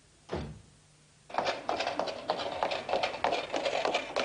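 Quick footsteps running on cobblestones, starting about a second in and going on as a fast, even patter.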